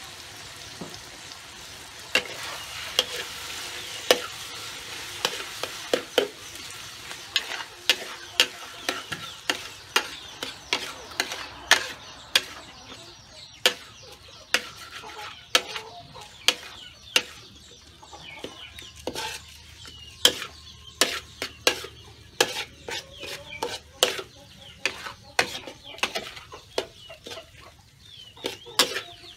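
Metal spatula knocking and scraping against a steel wok many times over as eggs and vegetables are stir-fried, with a frying sizzle underneath.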